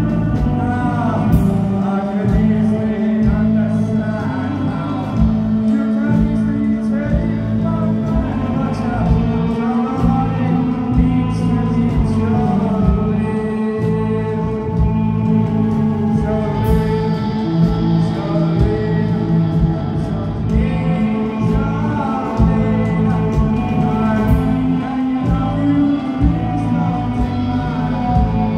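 A live rock band playing, with electric guitars, bass and a steady drum beat under a lead singer singing into the microphone.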